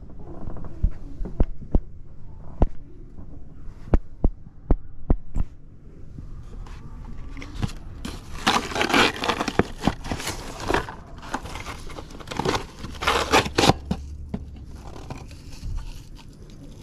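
Cardboard box of a vintage blinking Christmas tree being handled: scraping and crinkling of old cardboard, loudest from about eight to fourteen seconds in. It follows a few sharp taps in the first five seconds.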